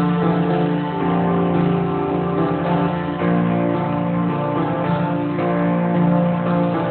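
Guitar music: plucked and strummed chords changing about once a second.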